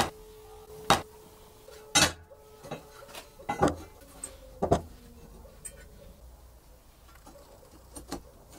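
Steel tubes set down and shifted on a wooden table: a series of sharp metallic clacks, about seven in the first five seconds, then a couple of lighter knocks near the end.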